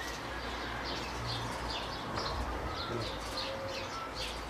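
Small birds chirping in a quick, steady series of short high notes, with a few thin whistles, over a low steady rumble.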